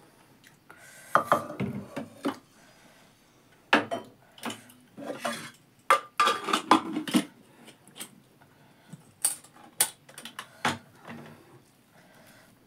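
A stainless steel ladle and steel dishes clinking and knocking irregularly as soup is served onto a steel plate of rice.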